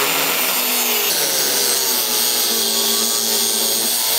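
Handheld electric power tool running continuously under load, cutting through a motorcycle fairing's mount, its motor pitch wavering slightly as it cuts.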